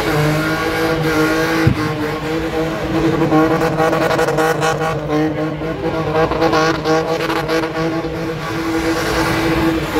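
BMW E30 spinning car's engine held at high, nearly steady revs while the rear tyres spin through smoky doughnuts. One sharp knock comes just under two seconds in.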